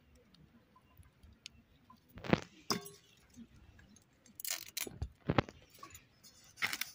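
Fish being cut up by hand on a boti blade, with pieces handled into a metal bowl: scattered short clicks and crunches, the loudest a little over two seconds in.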